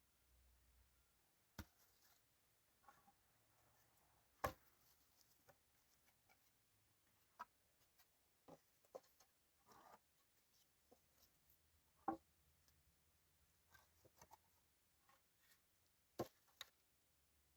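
Faint, irregular taps and knocks, about a dozen scattered through the quiet. The sharpest come about four, twelve and sixteen seconds in.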